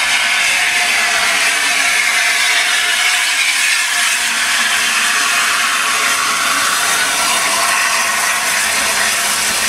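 Peppercorn A1 Pacific steam locomotive 60163 Tornado rolling slowly past at close range as it draws into the platform, with a steady metallic clatter and a high wavering squeal from the wheels and brakes.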